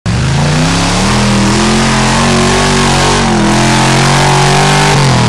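Off-road buggy's engine running hard at high revs under load as it climbs a muddy slope with its tyres spinning and throwing mud; the revs waver and drop near the end.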